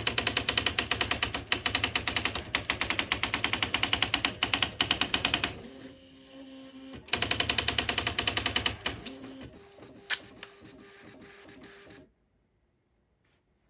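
Smith Corona SD 680 electronic typewriter typing in rapid, evenly spaced strikes, in two long runs separated by a short pause with a faint motor hum, then slower scattered clicks and one sharp click before the sound cuts off abruptly near the end.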